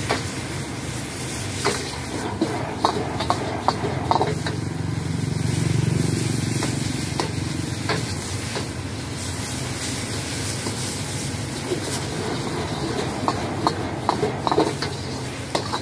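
Rice vermicelli being stir-fried in a wok over a gas flame: a metal ladle clinks and scrapes against the wok in scattered strikes over a steady sizzling hiss. A low rumble swells briefly around the middle.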